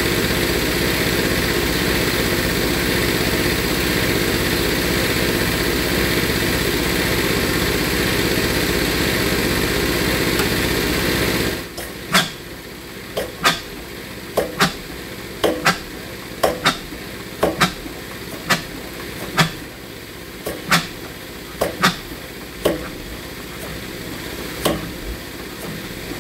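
Old evaporator-cooled (Verdampfer) single-cylinder stationary engine, about 5 litres and 20 hp. A steady loud drone runs for about eleven seconds and then cuts off suddenly. After it comes a string of sharp, irregular knocks, one or two a second, thinning out near the end.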